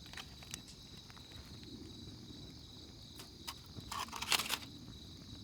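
Night insects, crickets, chirping steadily in a high, even trill. A few sharp clicks and a short rustle about four seconds in, the loudest moment.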